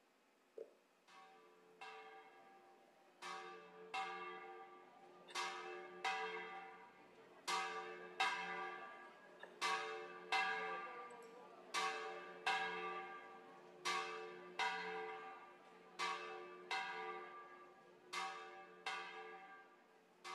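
Church bells ringing: struck in pairs about every two seconds, each strike ringing on and fading.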